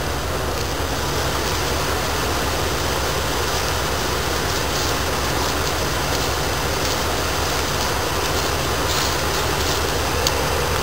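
Dodge Ram van engine idling steadily with the hood up.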